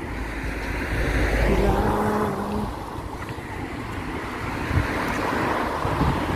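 Wind buffeting the microphone over a rushing noise that swells twice, with a brief steady hum about one and a half seconds in.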